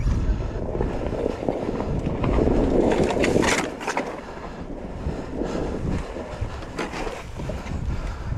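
Off-road motorcycle riding over rough ground heard from an on-board camera: wind rumble on the microphone and the bike's running mixed with knocks and clatter. It is loudest about two to four seconds in, with a few sharp knocks near the four-second mark.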